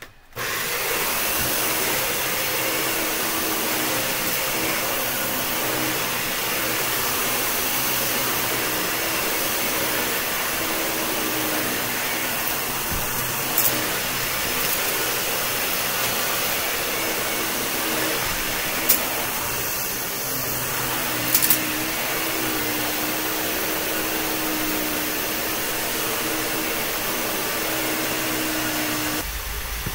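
Dyson DC41 upright vacuum cleaner switched on and running steadily with a constant whine and airflow noise while vacuuming carpet, with a few sharp clicks in the middle.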